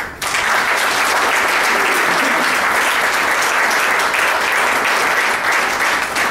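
Audience applauding: dense, steady clapping from a seated crowd that starts abruptly and holds at full strength.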